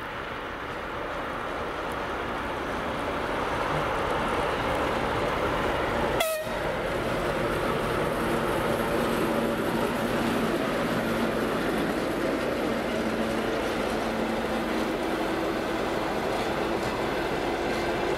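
A TEP70 diesel locomotive's V16 engine grows louder over the first few seconds as it comes up and passes. Passenger coaches then roll past in a steady rumble of wheels on rail. About six seconds in there is one short sharp crack.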